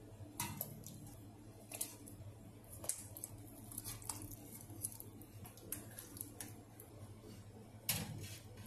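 Ladle clinking against a stainless steel stockpot and splashing in broth as boiled beef tongue is lowered back into it: a handful of short, sharp clinks and splashes, the heaviest one about eight seconds in.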